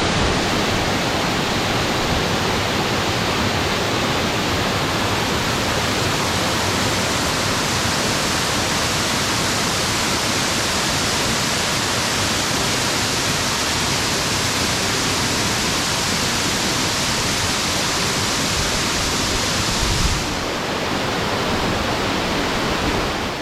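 Waterfall on West Prong Hickey Fork: a loud, steady rush of falling water, its tone shifting slightly about twenty seconds in.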